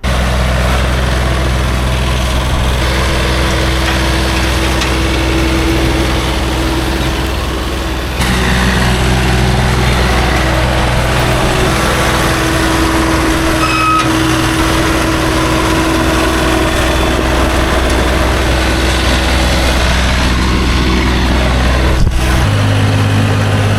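An engine idling steadily at an even pitch. It changes abruptly about 8 seconds in, and again near the end, when it settles at a higher idle pitch.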